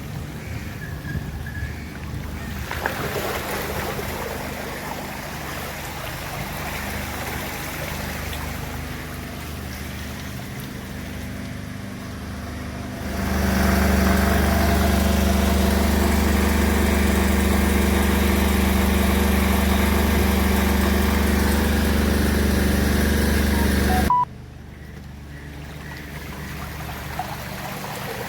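Outdoor ambience with water and traffic noise, then a steady engine running close by for about eleven seconds, cut off suddenly.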